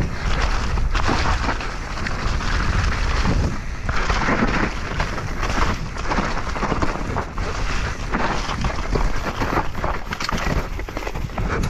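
Wind buffeting the microphone, with the rumble and rattle of a downhill mountain bike ridden fast over rough, muddy ground, in uneven surges.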